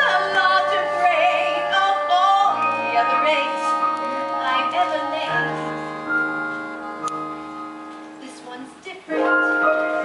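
Musical-theatre number: a woman singing with keyboard accompaniment for the first couple of seconds, then held chords that slowly fade before a fresh, louder chord comes in about nine seconds in.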